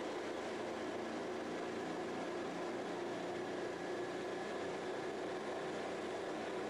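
Steady drone of the Raptor prototype's diesel engine and pusher propeller at taxi power, with an even hiss over it.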